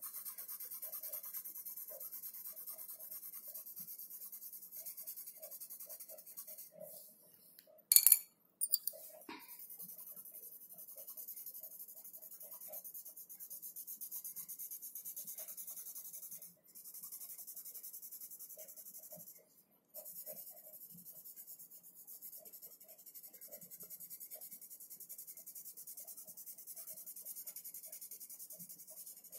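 Coloured pencil scratching on paper in quick, steady shading strokes. About eight seconds in there is one loud, sharp clack, followed by a smaller knock a second later.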